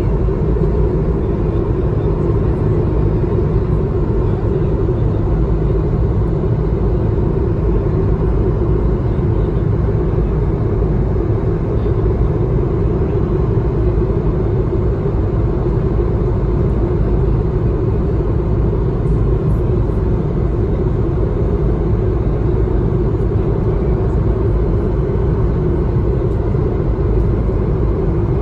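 Steady engine and airflow noise inside the cabin of an Airbus A220-300 climbing out, from a seat beside its Pratt & Whitney PW1500G geared turbofan: a deep rumble under a steady hum, unchanging throughout.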